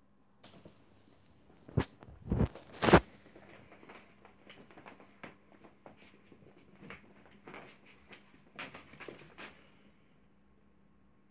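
A small pet's paws scampering and scratching on a wooden parquet floor, with loud knocks about two to three seconds in and scattered light taps and scuffs after.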